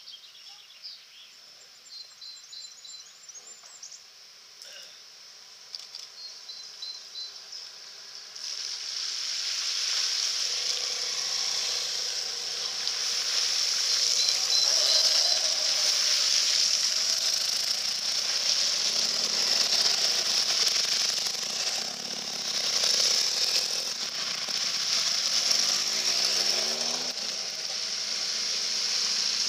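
Birds chirping for the first several seconds, then a line of motorcycles riding one after another through a shallow ford: engines running and tyres throwing up a steady hiss of splashing water from about eight seconds in, with one engine's pitch shifting as it passes near the end.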